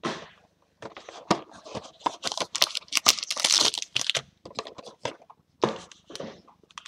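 Cardboard trading-card box being opened and a foil-wrapped card pack pulled out and set down: foil wrapper crinkling among quick taps and scrapes on cardboard, with short pauses.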